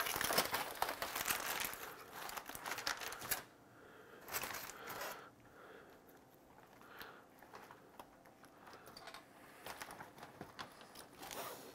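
Aluminium foil wrapping being peeled open by hand, crinkling and rustling; dense for the first three seconds or so, then quieter and more scattered.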